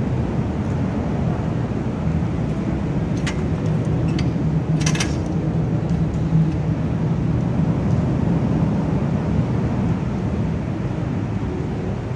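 Steady low rumble of road traffic, with a few faint knocks and one brief sharp sound about five seconds in.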